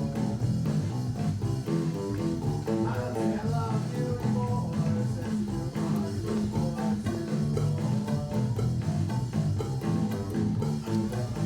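Guitar-led band music, its notes moving in quick steps over a full low end.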